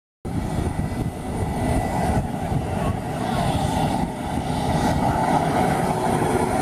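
Military jet aircraft flying over the air base, a loud steady engine noise.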